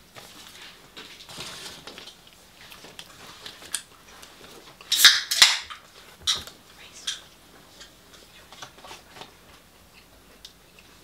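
Close-up eating sounds of fried chicken and chips: small crunches, clicks and crackles of chewing and of food being picked off paper, with two loud crackly crunches close together about five seconds in.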